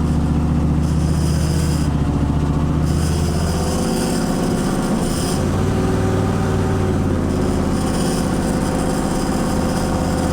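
Inside a moving 1991 Chevrolet Camaro: the engine running under light throttle, with a metallic ting and rattle that comes and goes. Something is vibrating under the car in the transmission tunnel, traced to a loose washer and screw.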